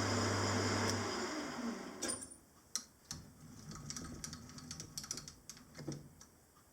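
Lathe running with a steady motor hum that winds down over the first two seconds, stopping. Then a scatter of light clicks and taps.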